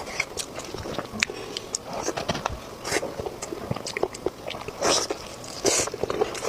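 A person chewing and biting food close to the microphone: a dense run of wet mouth clicks and smacks, with a few longer slurping or crunching sounds about three seconds in and again near the end.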